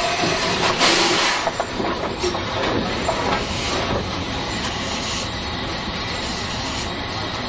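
Polish 0-8-0T steam tank locomotive moving slowly with its cylinder drain cocks open: a loud gush of steam about a second in, then a steadier, quieter hiss mixed with rail noise as it rolls on.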